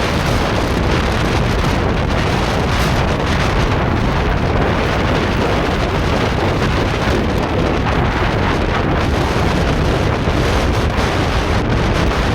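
Strong gusting wind buffeting the microphone, with a plastic sheet over a field flapping and rustling in it. The wind is tearing the sheet loose.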